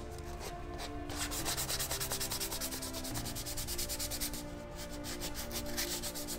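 220-grit sandpaper on a hand sanding block rubbed over a painted wooden windowsill and its wood-epoxy patch, in quick back-and-forth strokes with a short pause about four seconds in. This is fine finish sanding to smooth and feather the repair before repainting.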